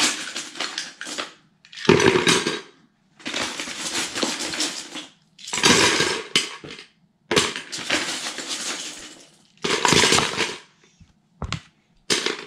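Loose Lego bricks poured into a bucket in repeated bursts of one to two seconds, with short pauses between.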